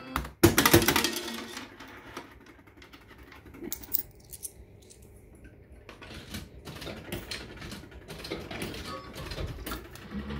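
Maygay 'The Great Escape' fruit machine clicking and clattering mechanically: a loud burst of clicks about half a second in, then quieter irregular clicking that picks up again later.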